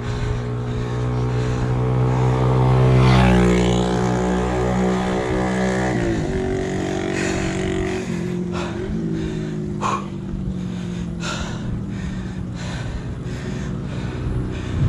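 Motor vehicle engine running close by on the road, growing louder for about three seconds, then dropping sharply in pitch about six seconds in and running on lower.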